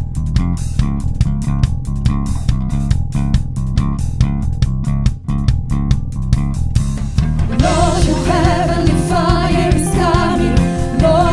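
Worship band playing: bass and guitar in a driving, evenly pulsed instrumental passage, with a voice starting to sing about seven and a half seconds in.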